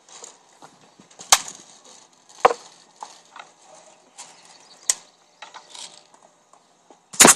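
Sharp clicks and knocks from a plastic battery-powered AK-47 BB gun being handled: three separate clicks a second or more apart, with a louder clatter near the end.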